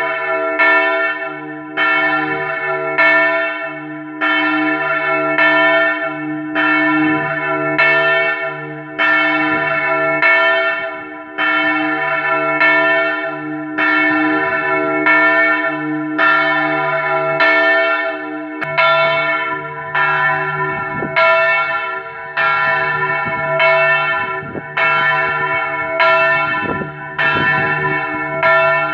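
Large church bell, a Marinelli bell of 1876 tuned to a slightly sharp E (Mi3), swinging full circle. Its clapper strikes about once every 1.2 seconds, and the bell's ring and low hum carry on between the strokes.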